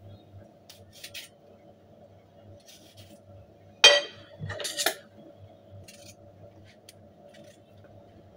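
Cucumber being peeled with a small blade over a ceramic plate: a few faint scraping strokes, then about four seconds in a sharp clink of metal on the plate, followed by a few lighter knocks. A faint steady hum underneath.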